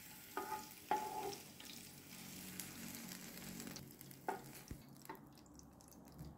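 Faint sizzle of hot vegetable oil in a frying pan as a wooden spoon lifts fried garlic and green onion out, with a few light knocks of the spoon against the pan and plate. The burner is already off, and the sizzle dies away about five seconds in as the oil cools.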